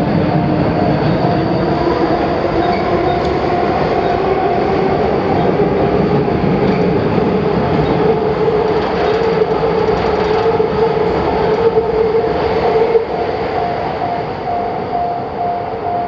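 Japanese level-crossing warning bell ringing in even, repeating pulses while a train runs past. The train's running sound rises slowly in pitch, then drops away about three-quarters of the way through.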